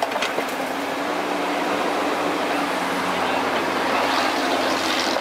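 Kubota KX91-3 mini excavator's diesel engine running steadily, with a few sharp clicks or knocks just at the start and a hiss swelling near the end.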